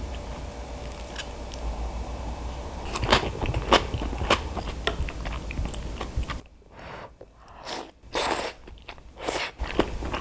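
Crunchy food being bitten and chewed close to the microphone, with a run of sharp crunches about three to five seconds in.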